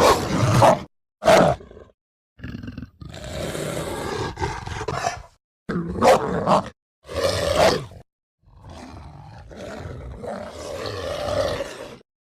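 Werewolf sound effect: a series of about six rough roars and growls separated by short pauses, a couple of them drawn out, the last one long and quieter.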